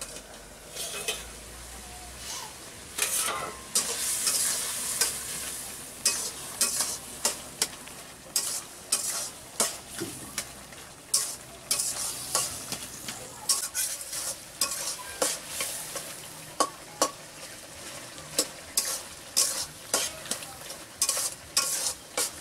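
A metal spatula scrapes and stirs ridge gourd and potato pieces in a wok, about one to two strokes a second, over the sizzle of the vegetables frying in oil.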